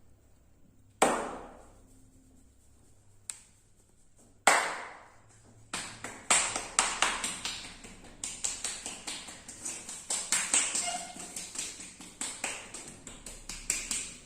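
Hand percussion massage: a barber's palms slap the client's body. Two loud single slaps land about three seconds apart, then from about six seconds in comes a fast run of rhythmic slapping strokes, about four or five a second.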